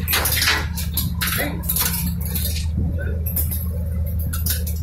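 Repeated sharp metallic clinks and clicks of longline fishing gear being handled into a wire basket, over the steady low drone of the fishing boat's engine.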